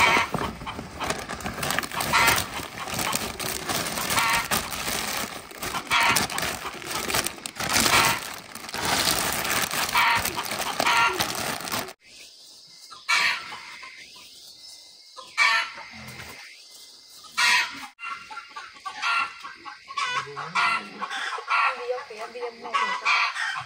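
Chickens clucking, with a rooster crowing. The sound is dense for about the first half, then drops off sharply and goes on more sparsely and quietly.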